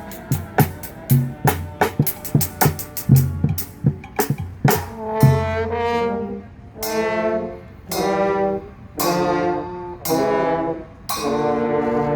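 Brass band with trombones and drums playing. The drums keep a steady beat for about the first five seconds, then the brass come in with a series of short held chords and finish on a long sustained chord near the end.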